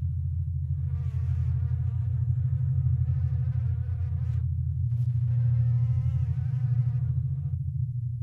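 A fly buzzing in two stretches of a few seconds each, its pitch wavering, with a brief click between them. Under it a loud, steady low rumble.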